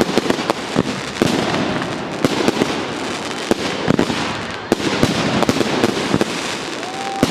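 Fireworks display going off: a rapid, irregular run of sharp bangs with dense crackling between them.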